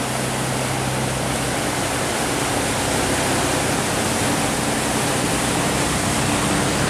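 Rushing, churning water from a steel cargo barge's bow wave as it pushes upstream through a sluice gate, with the barge's diesel engine running at full throttle underneath as a steady low tone. The sound is steady and grows slightly louder as the barge closes in.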